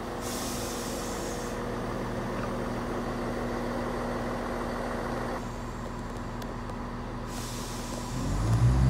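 Greater Anglia Class 170 Turbostar diesel multiple unit running along the platform, a steady engine hum under the noise of the moving train, with a hiss in the first second or so. A much louder low rumble comes in near the end.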